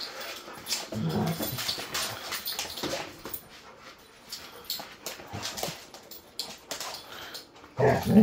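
Two Labrador retrievers play-fighting: short low growls and whines over scuffling and small clicks, with a louder growl near the end.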